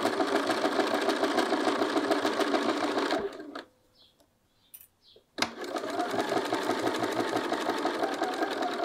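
Bernina sewing machine stitching at a steady speed. About three seconds in it stops for two seconds while the fabric is turned at a corner, then starts up and stitches again.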